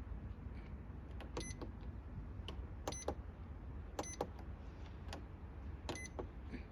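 Buttons on a Liebherr under-bench fridge's electronic control panel being pressed during a panel test: about four presses a second or two apart, each a double click with a short high beep.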